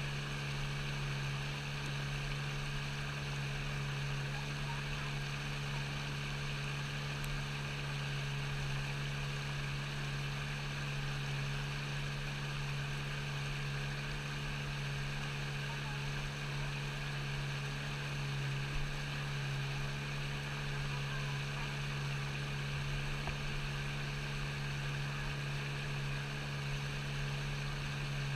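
A steady, unchanging engine hum with a low drone that holds one pitch throughout.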